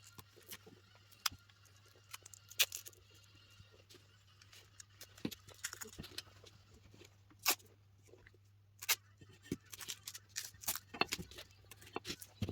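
Irregular clicks, taps and small knocks of hand-work on small parts, coming in scattered clusters over a low steady hum.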